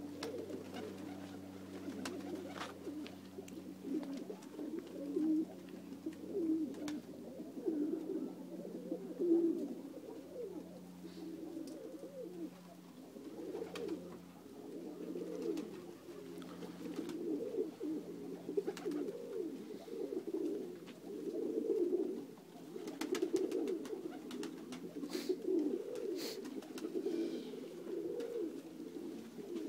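A flock of Macedonian Dunek pigeons cooing, with many overlapping coos and a few sharp clicks among them. A low steady hum underneath fades out about halfway through.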